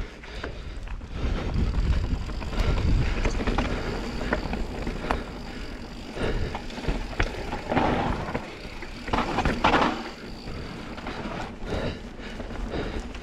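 Mountain bike riding fast down a dirt trail, heard from a helmet- or bike-mounted action camera: tyres running over dirt with frequent clicks and rattles from bumps, and a low rumble of wind on the microphone. Two louder rushes of tyre noise come near the middle.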